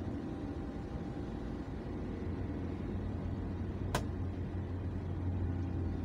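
Car driving steadily along an open road: a steady low engine and road hum with tyre noise. A single sharp click about four seconds in.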